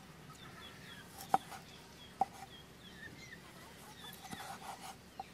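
Cleaver cutting limes on a wooden chopping board: two sharp knocks a little under a second apart, then a few softer cuts near the end. Chickens cluck in the background.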